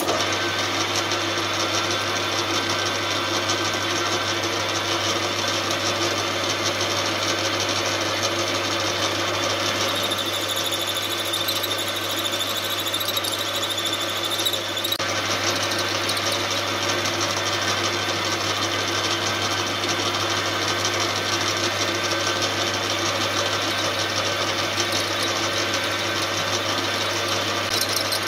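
Metal lathe running, turning down the head of a stainless steel cap head bolt held in its chuck: a steady motor hum and whir. A higher whine joins in for about five seconds in the middle and stops suddenly.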